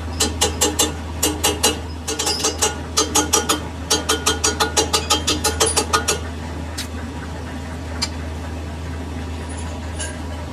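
Steady low hum of shop machinery with a fast, even series of light metallic ticks, about five a second, that stop about six seconds in; afterwards only the hum and an occasional tick.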